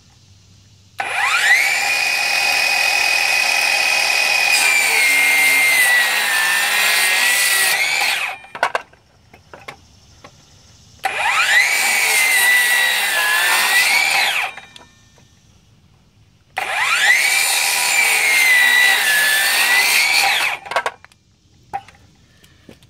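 Ridgid Octane 18V brushless circular saw with a 60-tooth Diablo blade making three crosscuts through an old pressure-treated 2x4. Each time the motor whines up to speed, its pitch sags as the blade works through the wood, then rises again before the saw stops quickly. The first cut runs longest.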